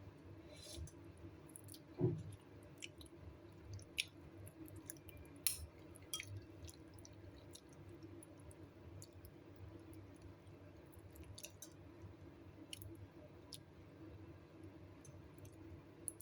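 Faint scattered clicks and light taps of a spoon against a bowl, with quiet eating sounds, as the soup is eaten; a soft thump about two seconds in. A low steady hum underneath.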